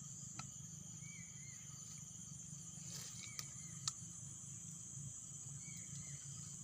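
Steady high-pitched drone of insects, with a few short bird chirps and two sharp clicks a little past the middle.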